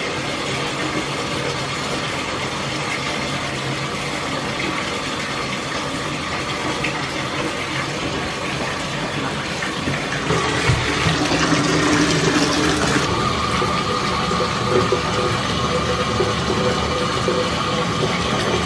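Water running steadily into a bathtub, getting louder about ten seconds in.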